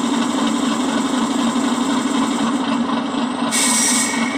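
Recorded diesel locomotive engine sound idling at tick-over, played from a model loco's digital sound unit through a small speaker. About three and a half seconds in, a short hiss of air escaping is heard, part of the handbrake-mode sounds.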